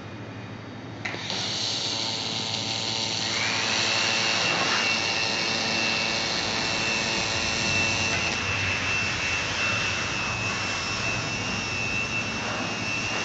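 1500 W handheld fiber laser welder running on steel: a steady hiss starts about a second in, joined about two seconds later by a steady high whine that holds to the end.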